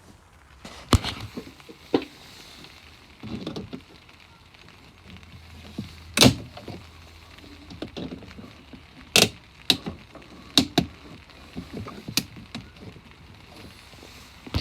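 Irregular sharp clicks and knocks of tools and parts being handled during engine work, about a dozen in all, the loudest about six seconds in and again about nine seconds in.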